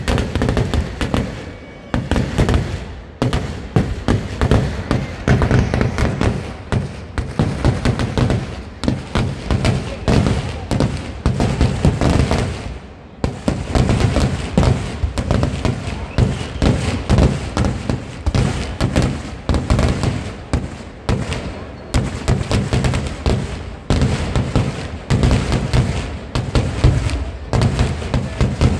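Vedikettu (Kerala temple-festival fireworks) going off in a rapid, continuous barrage of bangs, many a second, with a short lull about thirteen seconds in.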